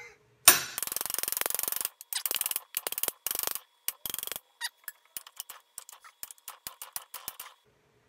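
A sharp metal strike about half a second in, a green tool used as a makeshift hammer on the rifle's pinned and welded muzzle device. Then comes about a second of dense, rapid metallic clicking, then shorter bursts of it, breaking up into scattered single clicks that stop about half a second before the end.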